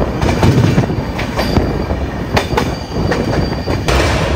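Passenger train running on the rails, heard from on board: a loud, steady wheel-on-rail rumble with irregular sharp clicks as the wheels cross rail joints, and a faint high squeal from the wheels.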